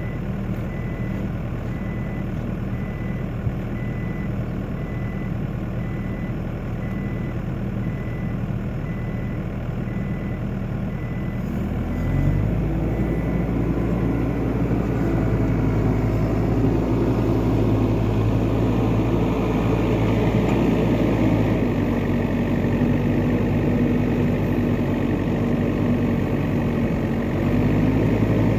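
New Holland skid steer's diesel engine running, with a high backup-alarm beep repeating for the first twelve seconds. About twelve seconds in the engine revs up and stays louder under load. The owner says the machine is stuck in a slow limp mode by a fault code.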